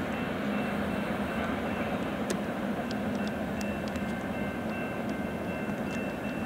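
Freight train of tank cars rolling past: a steady rumble of wheels on the rails. A faint, thin high-pitched ring comes in partway through, with a few light clicks.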